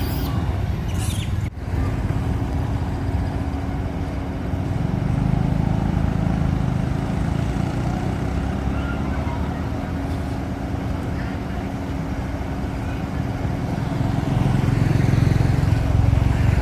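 Steady low rumble of an engine running, with a constant hum, like a motor vehicle idling or passing at a roadside.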